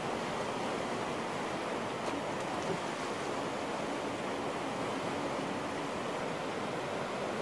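Whitewater rapids rushing steadily.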